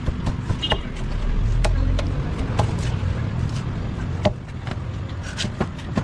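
Large cleaver chopping through tuna flesh into a wooden chopping block, about ten sharp chops at irregular intervals over a steady low rumble.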